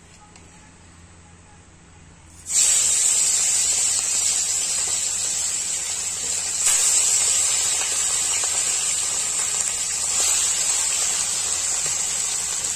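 Small marinated fish dropped into smoking-hot mustard oil in a steel kadhai, starting a sudden loud sizzle about two and a half seconds in. The sizzle flares up again twice, near seven and ten seconds, as more fish go into the oil.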